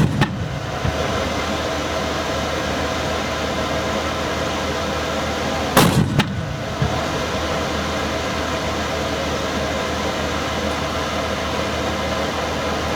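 Two loud mortar blasts, one right at the start and another about six seconds in, each with a short echoing tail, over a steady background hum.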